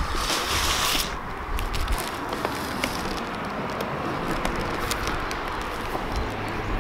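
Packing tape on a cardboard box being slit with a knife and worked loose: a rasping tear in the first second, then faint crackles and rustles of tape and cardboard over a low background rumble.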